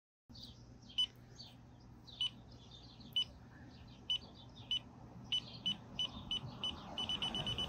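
Bike radar's car-approach alert beeping: single high beeps about once a second, coming faster and faster until they run at several a second near the end as a car closes in. The car's road noise rises underneath over the last couple of seconds.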